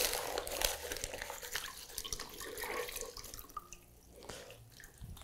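Hands working crumpled newspaper in a plastic bucket of water and lifting the soaked wad out, with small splashes and drips that grow fainter toward the end.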